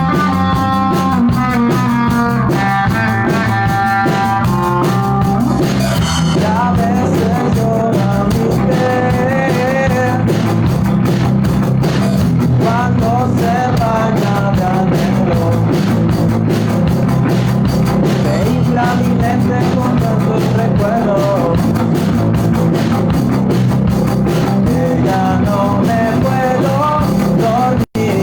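Rock music with drum kit and guitars and a wavering melodic lead line, playing at a steady loud level; it drops out for a split second near the end.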